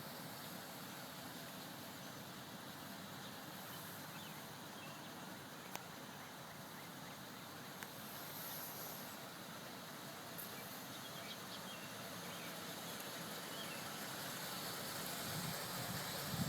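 Faint, steady outdoor background noise, an even hiss like distant traffic, with two brief clicks partway through.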